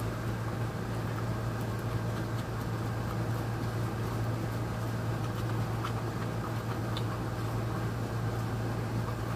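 Steady low hum over an even hiss, unchanging throughout, with a couple of faint ticks about seven seconds in.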